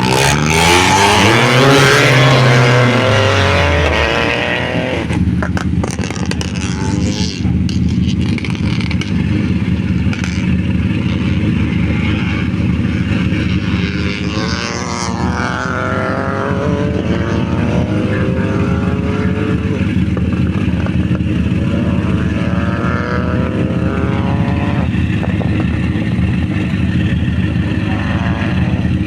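A rally car's engine revs hard as it launches and pulls away, its pitch climbing and dropping through the gears over the first few seconds. Then another car's engine idles steadily, with a fainter engine note rising in pitch several times in the middle stretch.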